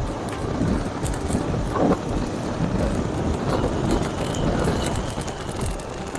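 A motorcycle on the move: steady rumble of wind and road noise, with no clear engine note standing out.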